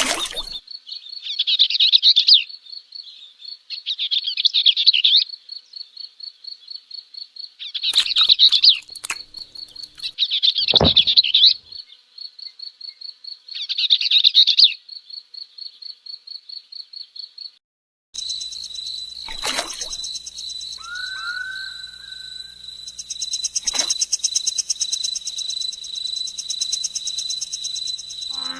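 Insects chirring: a rapid, even train of high pulses at one pitch, with louder bursts every two to three seconds. About 18 seconds in the recording cuts to a similar steady chirring with a high hiss, and two short rising whistles follow soon after.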